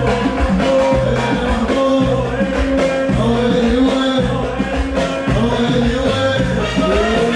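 A live band playing an instrumental passage of an Iraqi pop song, with a stepping bass line under a wavering, ornamented melody.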